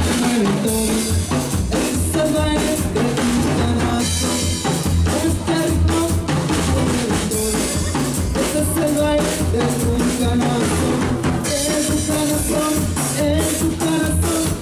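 Live cumbia band playing, with drum kit and keyboards over a steady bass beat.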